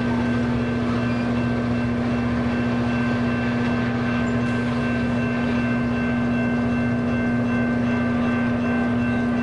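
Passenger train rolling slowly past, giving a steady low drone with a constant hum.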